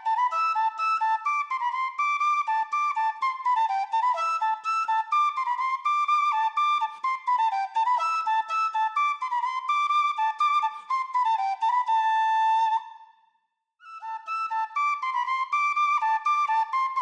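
Background music: a single flute-like wind instrument playing a quick run of high notes. It breaks off for about a second about three-quarters of the way through, then starts again.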